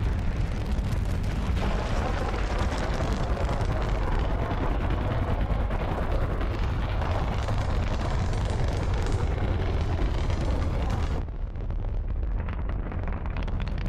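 Soyuz rocket engines at liftoff: a loud, dense rumbling noise. About eleven seconds in the high end drops away suddenly, leaving only a deep rumble.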